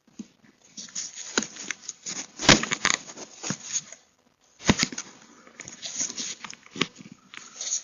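Close handling noise on a Ring Floodlight Camera as it is tampered with: a fast, irregular run of knocks, scrapes and rustles against the housing, with two loud thumps about two and a half seconds and just under five seconds in.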